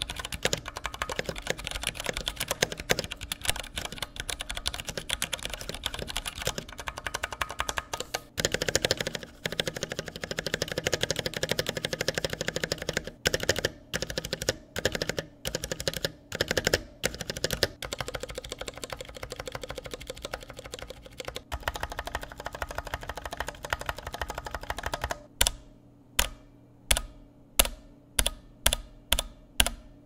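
Typing test on an iQunix F60 60% mechanical keyboard with Cherry MX Brown switches and foam between plate and PCB: a stretch of fast typing, the spacebar pressed over and over about halfway through, more fast typing, then single keys pressed one at a time about twice a second near the end.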